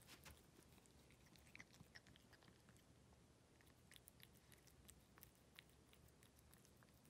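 A ragdoll cat eating soft wet pâté cat food: faint, irregular wet chewing clicks.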